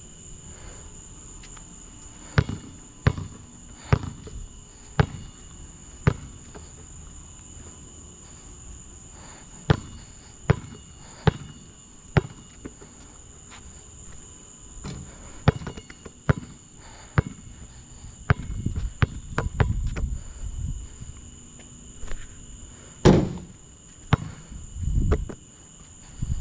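Basketball bouncing on a hard court: sharp single bounces about once a second in short runs, busier knocking later, and one louder bang about 23 seconds in. Crickets chirr steadily throughout.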